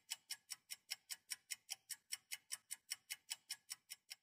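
Quiet clock-ticking sound effect marking a countdown timer, with fast, even ticks about five a second that stop abruptly at the end.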